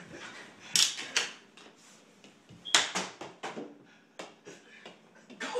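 Floor hockey play: a dozen or so sharp, irregular clacks and knocks of sticks and ball striking each other and the floor, the loudest about a second in and again near the middle, in a small room.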